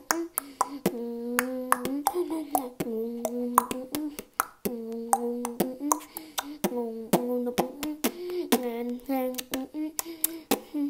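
Vocal beatboxing: sharp mouth clicks and snare-like hits, about two a second, over hummed notes held about a second at a time and stepping between a few pitches.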